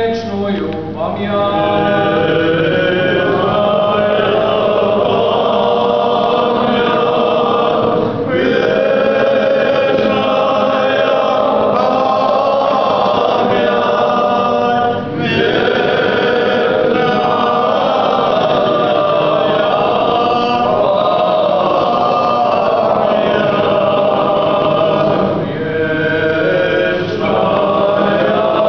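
Group of men's voices singing an unaccompanied Orthodox memorial chant together, in long held phrases with three short breaks for breath.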